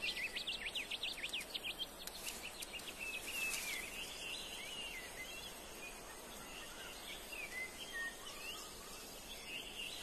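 Wild birds chirping, with a quick run of rising and falling calls in the first two seconds, then sparser calls over a soft, even background hiss.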